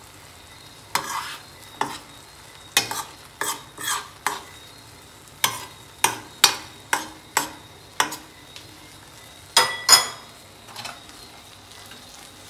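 A utensil scraping and tapping against a stainless steel skillet as soft scrambled eggs are stirred and turned, in about fifteen irregular strokes, the loudest near the end.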